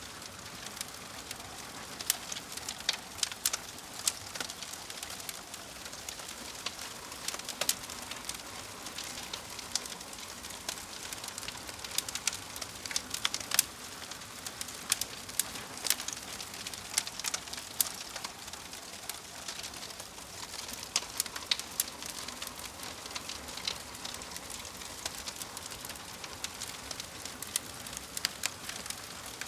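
Wood logs burning in a fireplace, crackling steadily: a soft hiss of flame with sharp pops and snaps several times a second at irregular intervals.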